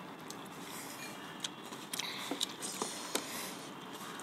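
Quiet eating sounds: a handful of short, light clicks and taps of forks on a metal pan and a glass bowl as noodles are picked up, over a low steady hiss.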